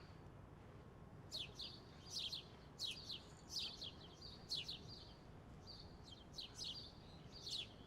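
Birds chirping in a quiet courtyard: a string of short, high, downward-sweeping chirps in quick groups, starting about a second in, over a faint low hum of distant city traffic.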